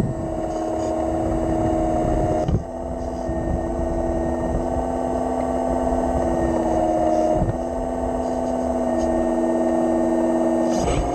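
Hydraulic drive of a radio-controlled Liebherr 946 model excavator whining steadily with several held tones. The tones shift in pitch and level a few times as it works, with a light knock about two and a half seconds in and another about seven and a half seconds in.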